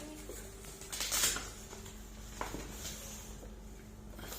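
Handling of a wrapped birthday gift being opened: a short rustle about a second in and a sharp tap or click a little later.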